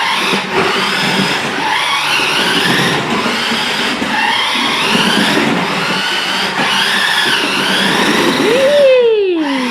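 Small electric motor whining, its pitch rising and falling over and over, with a louder swoop up and then down near the end.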